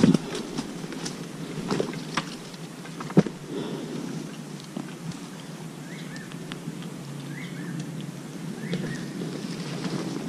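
Footsteps and rustling through brush and forest undergrowth, with a few sharp clicks and snaps in the first few seconds, the loudest about three seconds in. A small bird gives three short chirps in the second half.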